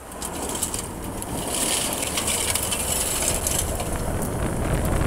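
Tyres of a Ford F-150 Lightning electric pickup prototype crunching over loose gravel and dirt at speed, with scattered ticks of flung stones and a low rumble, growing louder as it goes.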